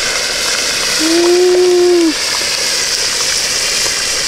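Steady hiss and sizzle of hot oil and steam in an outdoor turkey-fryer pot as a whole turkey is lowered into it on a lifting hook. A little after a second in, a single held tone lasts about a second and then drops away.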